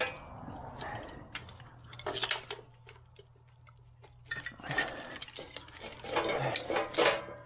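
Engine wiring harness being worked under the fuel rail by hand: clicks, rattles and scraping of plastic loom and connectors against engine parts, in several short spells.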